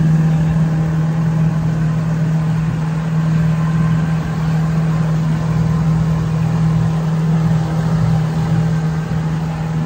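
Yamaha Enduro 115 two-stroke outboard motor running steadily with the boat under way, a constant low drone.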